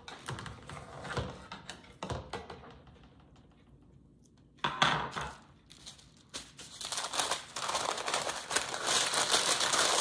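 Light clicks of a metal fork against a metal sheet pan, a brief louder rustle about halfway, then parchment paper crinkling steadily over the last few seconds as a sandwich is wrapped in it.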